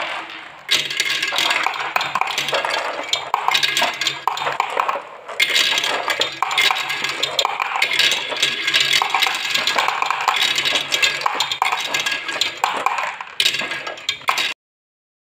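Marbles dropping off a plastic marble-run track into a toy dump truck's yellow plastic bed, a dense run of clicks and clacks as they hit the bed and each other. The clicking eases briefly about half a second in and again near five seconds, then cuts off suddenly near the end.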